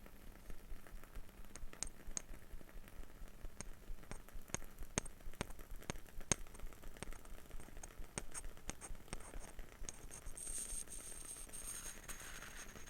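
Light, irregular clicks and taps of wooden objects being handled, with a brief rustling scrape near the end.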